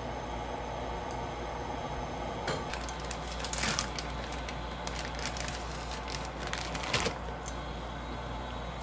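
Plastic noodle packet crinkling and rustling as it is opened and a bundle of dried buckwheat noodles is pulled out. The crackles are scattered through the middle and are loudest about a second and a half in and again near seven seconds, over a steady low hum.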